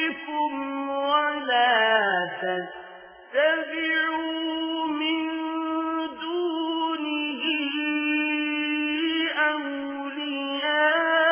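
A single voice chanting Quran recitation in a slow melodic style, drawing out long held notes with ornamented pitch bends. About two seconds in, the voice falls to a low, fading note, then comes back strongly on a new held note just after three seconds.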